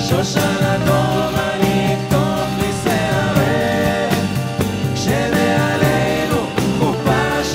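A live band playing a folk-rock ballad with drum kit, oud and hand drum, and voices singing together over it.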